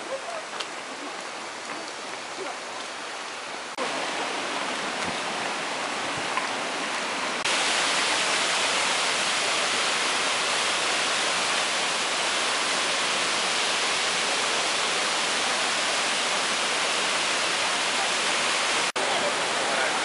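Minoo waterfall's falling water rushing as a steady, even hiss. It grows louder about four seconds in and again about seven seconds in, with a momentary break near the end.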